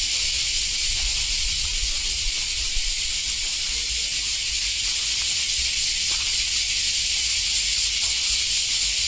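A steady, high-pitched hiss that does not change, with a low rumble beneath it.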